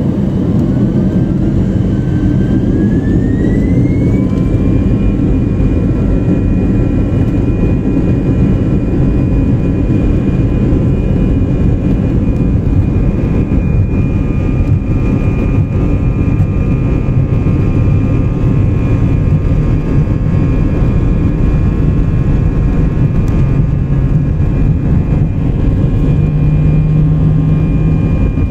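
Airbus A320's CFM56 turbofan engines spooling up to full takeoff thrust, heard from inside the cabin. The fan whine rises in pitch over the first few seconds, then holds steady over a heavy rumble as the aircraft accelerates down the runway.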